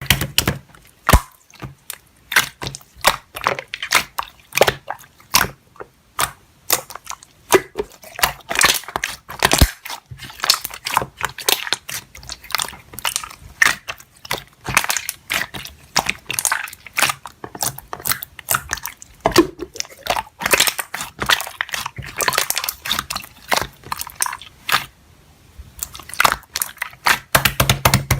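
Slime being squeezed, folded and pressed by hand: a continuous run of sticky clicks, pops and crackles.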